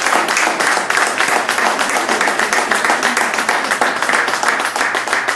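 Audience applauding: many people clapping at once, steady and loud.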